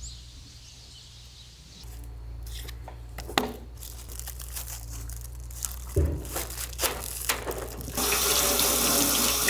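Scattered knocks and clatter of things being handled, then a tap is turned on about eight seconds in and water runs steadily into a sink.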